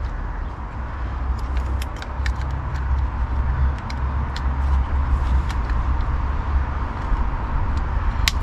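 Scattered small sharp clicks from a car door lock mechanism and its spring being handled and worked into place, over a steady low rumble.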